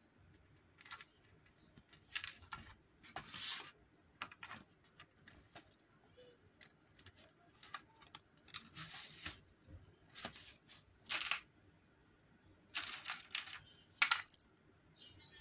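Plastic Lego chain clinking and rattling as it is handled and laid across Lego plates, in short irregular bursts, with a sharp click of plastic parts near the end.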